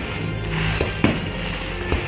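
Fireworks show soundtrack music with aerial shells bursting over it: a sharp bang about a second in, just after a fainter one.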